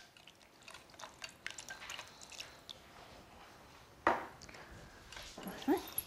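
Wire whisk with silicone-coated wires stirring a thin lemon sauce in a stainless steel pot: light scraping and clicking against the pan, with a sharper knock about four seconds in.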